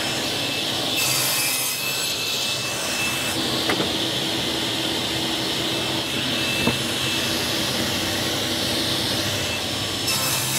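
Table saw running and crosscutting a thick oak panel square on its sliding table: a steady saw noise with the hiss of the blade cutting through the wood.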